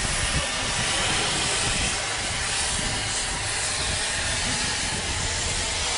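Steam locomotive venting steam: a loud, steady hiss.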